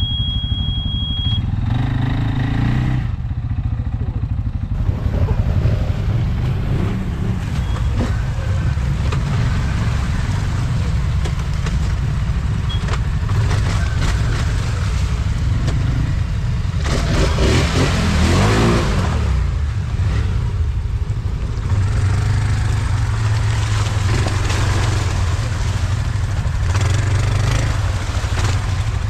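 ATV engines running on a dirt track, with one engine revving up and back down about two-thirds of the way through.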